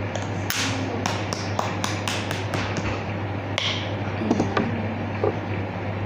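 Plastic squeeze bottle of tomato ketchup being shaken upside down, giving a quick run of sharp knocks for about two seconds, then a few separate knocks as it is squeezed. The bottle is nearly empty.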